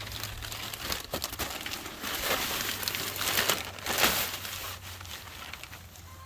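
A plastic bag of potting soil crinkling and rustling as it is handled to fill a planter tier, loudest in the middle.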